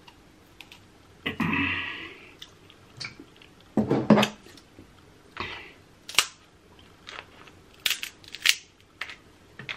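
Close-miked eating of crab: sharp clicks and crunches of shell being cracked and pulled apart, with chewing and lip smacking in between.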